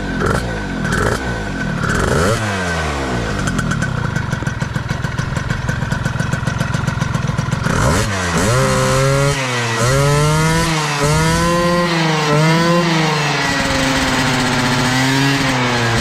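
Honda Dio two-stroke scooter engine running through a new exhaust pipe, freshly broken in. The revs drop off after a few blips at first, hold steady for a few seconds, then rise and fall about once a second through the second half as the throttle is blipped.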